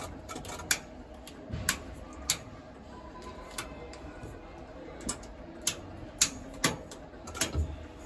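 Toggle and rotary switches on a Comeng tram's driver control panel being flipped, giving about nine sharp, irregular clicks over a faint steady hum.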